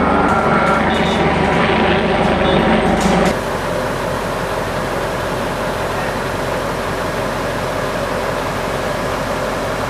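Fire trucks' diesel engines running close by. About three seconds in the sound cuts abruptly to a slightly quieter, steady idling.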